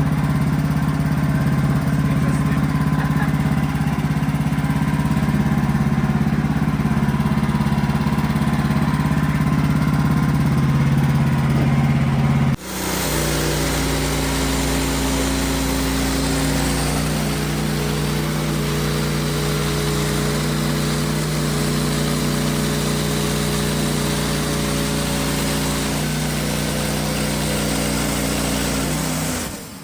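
Wood-Mizer LX55 portable band sawmill running steadily. About halfway through the sound changes abruptly to a different engine note with a harsher, hissier edge, which fits the blade cutting through the poplar log.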